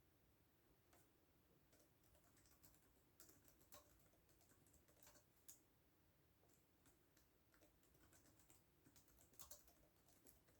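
Faint typing on a computer keyboard: scattered, irregular keystrokes with pauses between them, and a quick little run of keys about nine seconds in.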